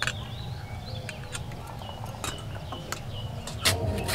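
Small birds chirping in the background over a steady low wind rumble, with scattered light knocks as wet potato pieces are lifted from water and dropped into a steel bowl.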